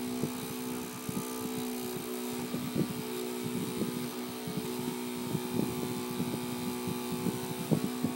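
Toy helicopter's small electric motor spinning its rotor blades: a steady hum with irregular clicks and knocks throughout.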